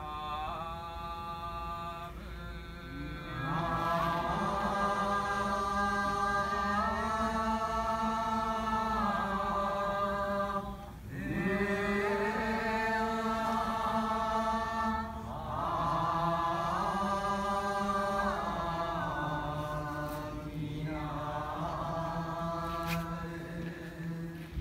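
Buddhist liturgical chanting of the Ji-shū school: long, drawn-out sung notes that glide slowly between pitches, in phrases several seconds long with short breaks for breath.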